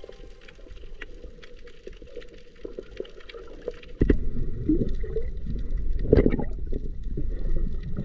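Underwater sound picked up by a camera on a coral reef: at first a faint scatter of clicks, then from about four seconds in a louder rumbling and sloshing of water as a snorkeller swims just below the surface.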